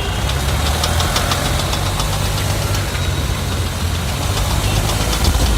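Car engine running under light throttle with a rapid, repeated clicking ('kat kat kat') from a front drive shaft's CV joint as the car moves on full steering lock. The clicking is the sign of a failing drive shaft joint, here on the right-side axle, whose rubber boot is cut and has let the grease out and dirt in.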